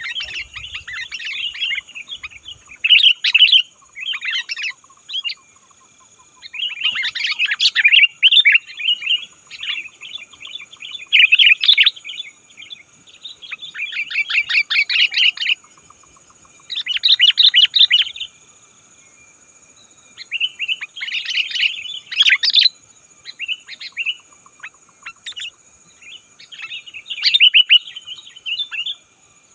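Sooty-headed bulbul singing vigorously: loud bursts of quick chattering notes, each a second or two long, repeated again and again with short pauses between.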